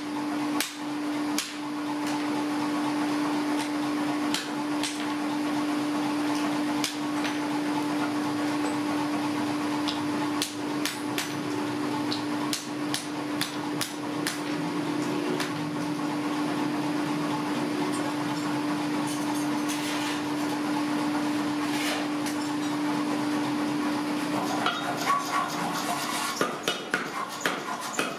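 Hand hammer blows on a red-hot axe head against a steel anvil, scattered strikes with a ringing metallic edge, over the steady hum of the forge's electric blower motor. Near the end the hum stops and the hammering turns into a fast, even run of blows, about four a second.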